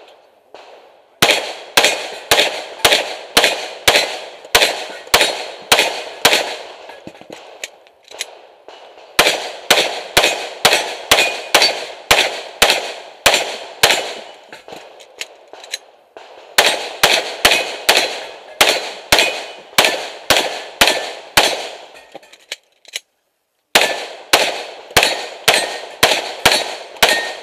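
SJC Glock 17 open-division pistol firing rapid shots at steel targets, about two shots a second, in four strings with short pauses of a second or two between them.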